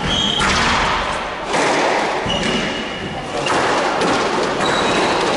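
Dull thuds and short high squeaks of court shoes on a squash court's wooden floor, over a rushing noise that comes and goes in blocks of about a second.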